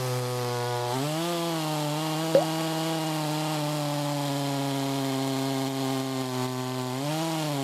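Maruyama two-stroke gasoline chainsaw running under heavy load in a thick log, its engine note held low and steady. The pitch climbs briefly about a second in and again near the end as the chain bogs and frees in the cut, because the log is too thick to cut easily. One sharp tick about two seconds in.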